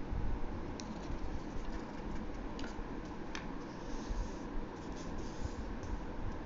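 A sheet of origami paper rustling and sliding on a tabletop as it is folded corner to corner and creased. There are a few light paper clicks about a second in and around three seconds, with more rustling in the second half as the fold is pressed down, over a steady low background rumble.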